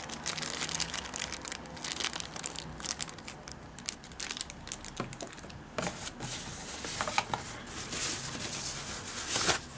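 A clear plastic bag and white tissue-paper packing being handled and crumpled by hand: dense crinkling and rustling with many sharp crackles, loudest just before the end.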